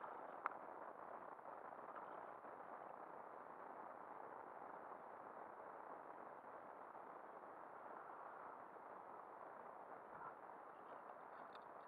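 Faint, muffled, steady rush of wind and lapping water on open water, with one sharp click about half a second in and a few faint ticks near the end.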